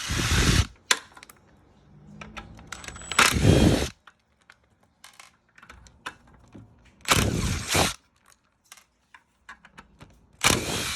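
Cordless drill/driver with a hex bit running in four short bursts, about three to four seconds apart, backing out the scooter's rear-wheel hex bolts. Small clicks and taps of tools and loose bolts come between the bursts.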